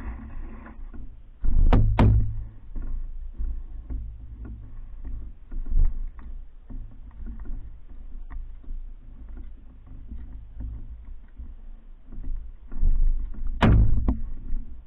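Paddling a Hornbeck New Trick solo pack canoe: paddle strokes and water moving against the hull over a steady low rumble, with loud sharp knocks about two seconds in and again near the end.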